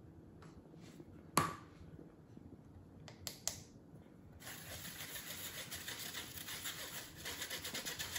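A spoon scraping and tapping against a fine-mesh sieve, working flour through it: a steady scratchy rasp with rapid light ticks from about halfway through. Before that, a single knock about a second in and a couple of clicks.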